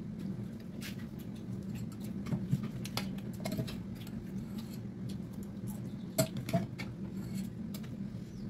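Close-up eating sounds of pork trotters and rice eaten by hand: chewing and lip smacks, with scattered clicks of fingers and a spoon against steel plates, the sharpest about two and a half and six seconds in. A steady low hum runs underneath.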